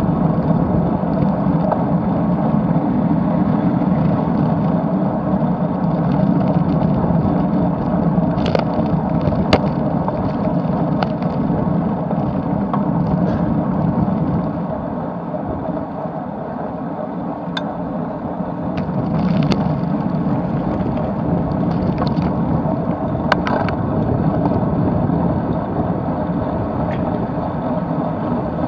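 Wind and road noise on a bike-mounted camera during a road-bike climb at about 25 km/h: a steady rushing, with a few sharp clicks scattered through.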